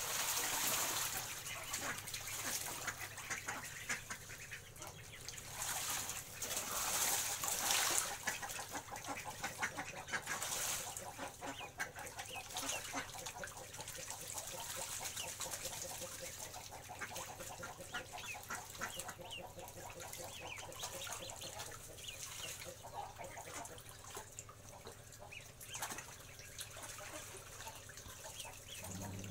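Ducks bathing in a shallow pond: heavy splashing and wing flapping in the water for the first ten seconds or so, then calmer paddling with many short duck calls throughout.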